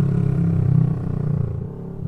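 Kawasaki Vulcan S parallel-twin motorcycle engine and exhaust moving away after a drive-by, a steady engine note that fades over the second half.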